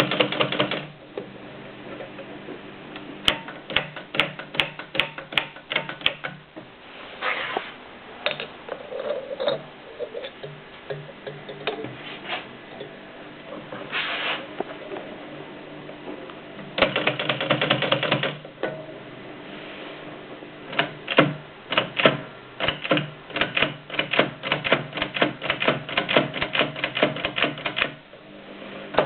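AEG Mignon index typewriter typing: irregular sharp clicks and clacks of the type strokes, scattered at first, then quick runs of strokes, the longest over the last several seconds.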